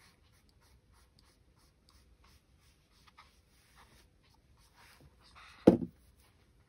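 Paintbrush brushing and dabbing wet watercolour on card: a string of faint, soft scratchy strokes, with one sharp knock about five and a half seconds in.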